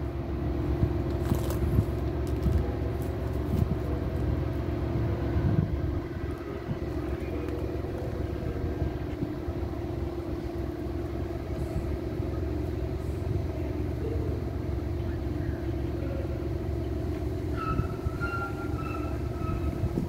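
Steady low rumble and hum of a standing Amtrak train's diesel locomotives idling: a P42DC, a Dash 8 and ALC-42 Chargers, with a held engine tone. A faint thin high tone comes in near the end.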